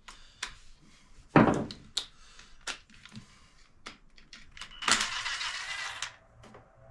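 Bolts and small hand tools being handled while the engine cover bolts of a dirt bike are threaded back in and snugged: scattered small metallic clicks and knocks, a louder knock about a second and a half in, and about a second of rattling scrape near the end.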